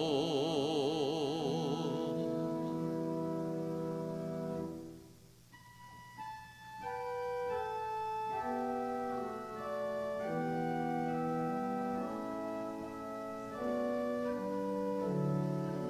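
A man's held final sung note, with vibrato, over a sustained organ chord, ends about two seconds in; the chord fades away near five seconds. After a short pause the organ plays on alone in slow, sustained chords.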